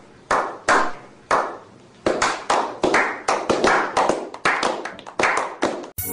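A slow clap by a small group of men: a few single hand claps spaced well apart, then steadier, faster clapping at about four claps a second. It cuts off suddenly near the end.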